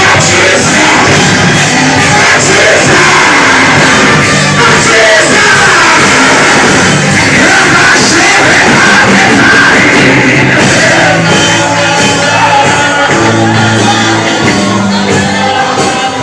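Loud worship music with voices singing and shouting over it, continuous throughout.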